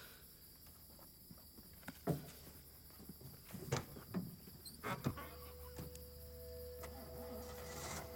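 Crickets chirping steadily in the night, with a few scattered knocks and rustles between about two and five seconds in. After that a steady low hum sets in and the sound grows slowly louder toward the end.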